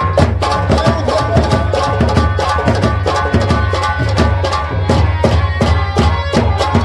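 Instrumental band music with a fast, even hand-drum rhythm over a steady bass and held keyboard-like notes.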